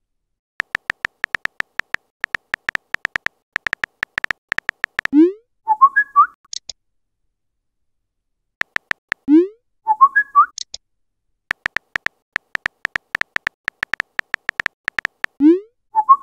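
Phone keyboard typing clicks in quick runs. Each run ends in a short swoop rising in pitch, then a brief chime of a few notes, as a chat message is sent and appears. This happens three times.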